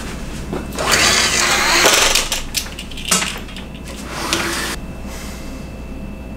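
Pleated window shades being pushed up, a long noisy swish starting about a second in, then a shorter one a few seconds later as the next shade goes up, with a few light clicks between them.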